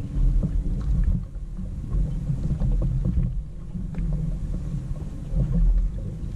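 Low, uneven rumble aboard a fishing boat at sea, with a few light knocks.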